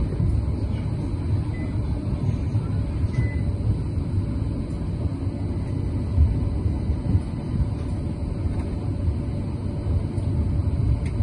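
CAF Urbos 100 tram running along street track, heard from inside near the driver's cab: a steady low rumble of the moving tram.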